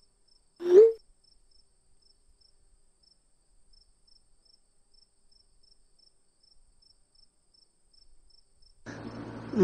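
Faint cricket chirping, a steady train of short high chirps at an even pace. About a second in, a man makes one short voiced sound that rises in pitch, and near the end a low hum comes in.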